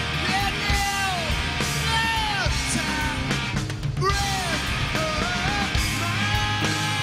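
Live rock band playing loudly: electric guitar through a Marshall amp, bass and drums, with a man singing long notes that fall away in pitch at the ends of the phrases.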